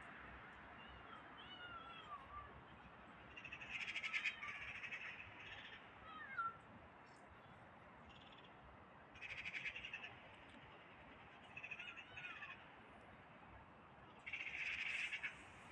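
Animal calls over a faint outdoor background: three harsh, buzzy calls about a second long each, spaced several seconds apart, with short falling cries between them.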